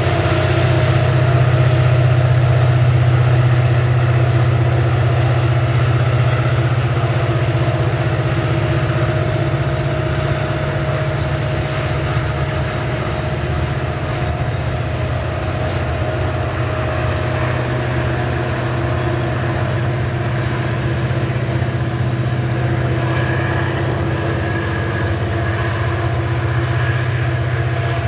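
Loaded coal train's hopper cars rolling past: a steady, loud rumble of steel wheels on the rails.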